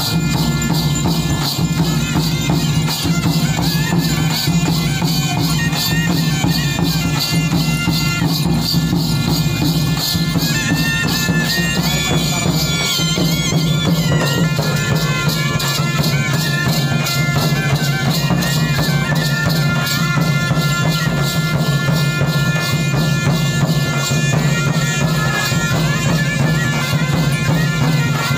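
Gond folk music for the Gusadi dance: painted frame drums beaten in a fast, dense rhythm over a steady low drone, with a shrill reedy wind instrument playing a wavering melody, clearest about halfway through.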